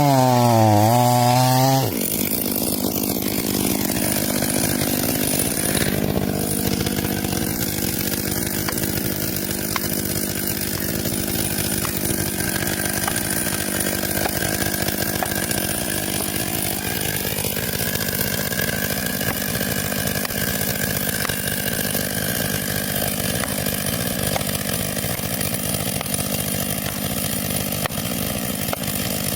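Two-stroke chainsaw running. Its engine note sags and climbs back in the first two seconds, then it settles into a steady, slightly quieter run.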